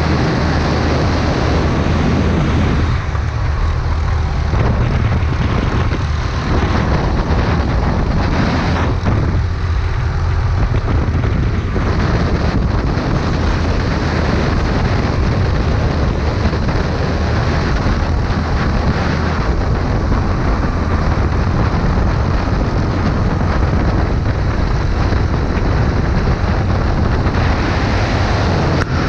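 Go-kart engine running at speed on track, mixed with a steady rush of wind over the kart.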